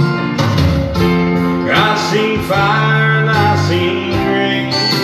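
Acoustic guitar music playing strummed and picked chords, a backing track in the pause between sung lines.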